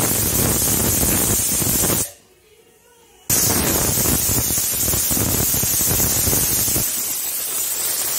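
Butterfly pressure cooker whistling: steam blasts out under the lifting weight in a loud, rough hiss, in two long bursts with a break of about a second between them. This is the cooker at full pressure, its whistles counted to time the cooking of the mutton.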